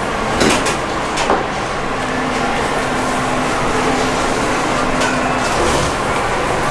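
Steady background noise of a commercial kitchen, with a few short crinkles of plastic cling wrap being handled around a sushi roll in the first second and a half.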